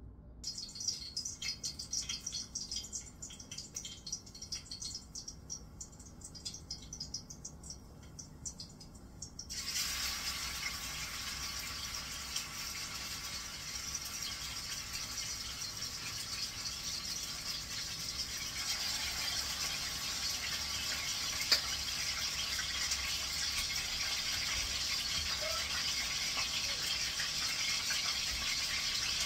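Hot cooking oil crackling and popping in a pot, then about nine and a half seconds in a sudden steady sizzle as pieces of seasoned pork are dropped in to brown, the sizzle going on after that.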